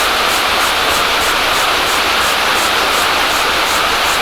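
Steady hiss of heavy rain, with a faint high ticking repeating about three times a second.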